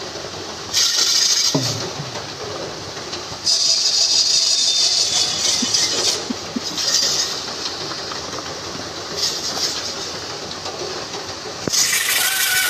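Wooden lattice wheel and beam of a bull-driven circuit rattling and grinding as a pair of bulls drag it round at a run, surging and fading every two to three seconds. A shrill steady tone starts near the end.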